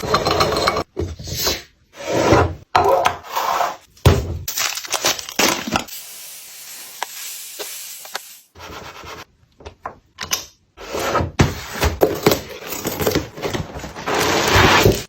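Food containers and packaging being handled and set into a fridge: knocks, clatter and rubbing in short bursts that cut off abruptly several times.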